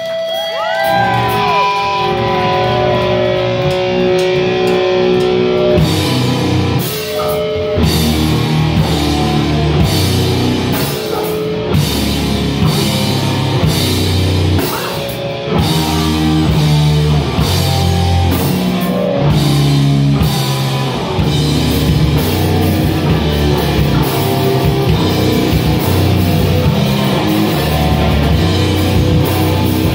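Live metal band playing loud, with distorted electric guitar and drum kit. Held guitar notes with rising pitch bends open the passage, then the full band with drums and cymbals comes in about six seconds in.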